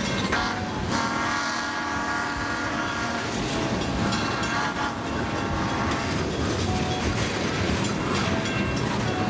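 A train rolling on the rails, its wheels clattering steadily. About a second in, the train sounds a long warning blast of several tones together that lasts roughly two seconds.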